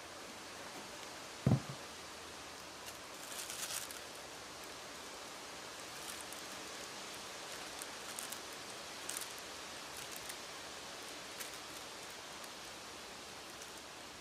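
Steady faint background hiss, with soft crinkles and light ticks of tissue paper being handled and pressed onto a cut-paper stencil. There is a single dull knock about a second and a half in.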